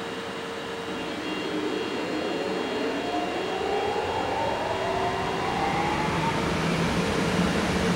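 EF64 electric locomotive standing at the platform with its electrical equipment running: about a second in, a whine starts rising in pitch and grows steadily louder over a steady hum.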